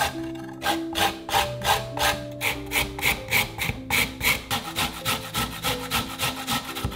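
A carrot rubbed up and down a flat stainless-steel hand grater resting on a wooden cutting board: rhythmic rasping strokes, about three a second and a little faster in the second half.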